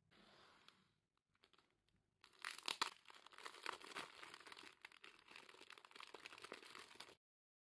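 Thin plastic bakery bag crinkling and rustling as a soft bun is unwrapped from it by hand, loud and continuous for about five seconds before cutting off abruptly. At the start, a soft brief tearing of a soft bread roll being pulled apart.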